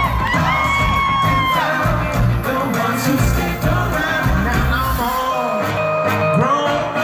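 Live pop-rock band playing with vocalists singing into microphones, over a steady bass and drum beat, heard through the concert's loudspeakers.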